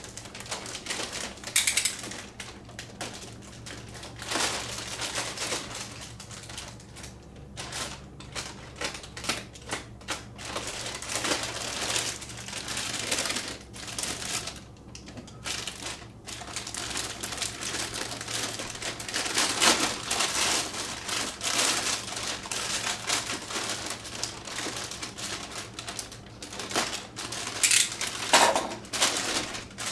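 Packing material being handled: irregular rustling, crinkling and small clicks and knocks of cardboard, plastic and foam as the plane is worked out of its box.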